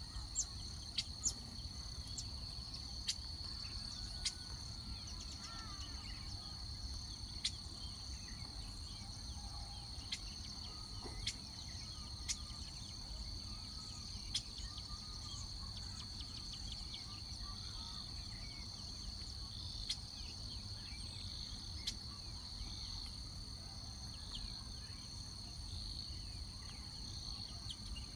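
A steady, high-pitched insect chorus drones without a break. Scattered short, sharp clicks and faint brief chirps sound over it, and a low rumble runs underneath.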